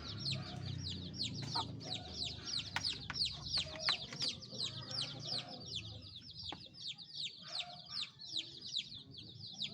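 Domestic chicks peeping continuously, a stream of high, downward-sliding cheeps several a second, the calls chicks make for the mother hen. Lower clucking sounds are mixed in.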